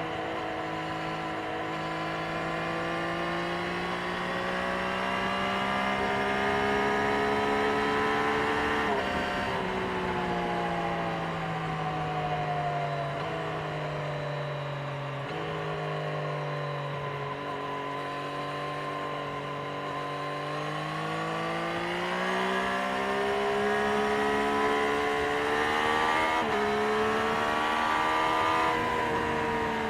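Triumph Street Triple 765 RS's inline three-cylinder engine through its stock exhaust, pulling under load with the note climbing slowly, then dropping sharply about nine seconds in. It eases down for a while, then climbs again, with further sharp drops near the end at gear changes.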